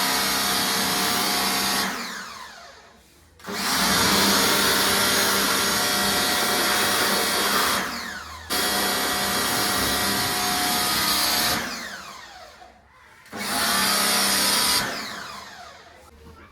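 Agaro electric pressure washer running under load while spraying. Each time the trigger is released, the motor cuts out and spins down with a falling whine, then starts again when it is squeezed: four runs with three full stops.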